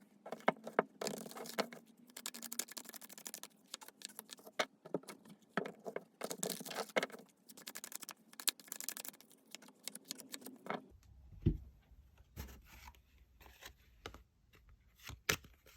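Tarot cards being shuffled and handled: a dense run of papery rustling, sliding and snapping, giving way about eleven seconds in to sparser taps and slides.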